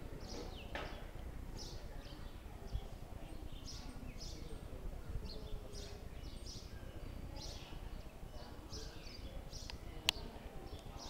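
Small birds chirping, short high chirps about twice a second, over a steady low background rumble. A single sharp click comes near the end.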